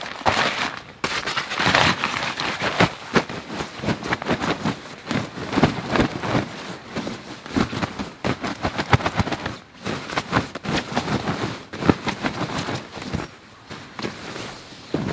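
Rustling and crinkling of sleeping bag fabric as the bags are pulled and fitted together by hand, with a dense, irregular run of small crackles.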